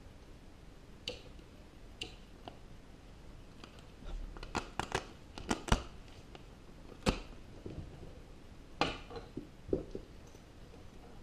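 A fabric camera shoulder bag being handled: a scatter of sharp clicks and short knocks as its plastic buckles are unclipped and the flap is opened. The clicks come thickest about halfway through, with a few single ones either side.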